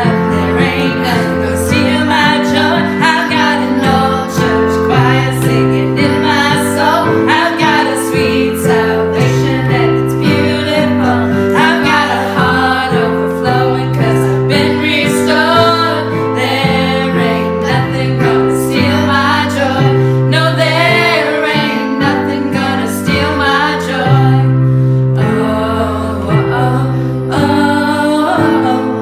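Two women and a boy singing an upbeat worship song in harmony, accompanied by piano chords on a Roland electric keyboard.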